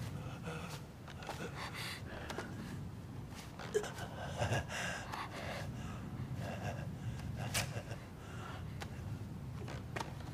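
Tense, sharp gasps and breathing over a steady low rumble, with scattered small clicks and rustles.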